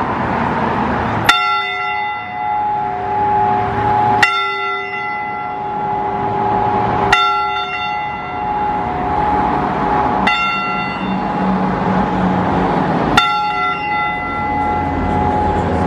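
Church bell tolling: five single strokes about three seconds apart, each ringing on until the next.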